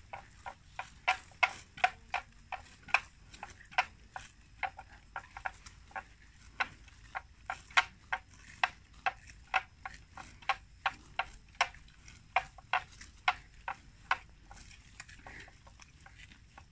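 Water buffalo grazing close by, tearing off mouthfuls of grass with crisp ripping snaps about two or three a second; the snaps stop near the end.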